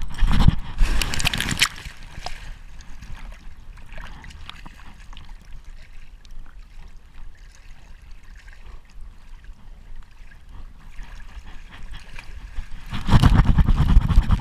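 Water splashing and dripping around a camera strapped to a wet Labrador, with a loud rush of splashing in the first two seconds and another near the end, and quieter trickling between.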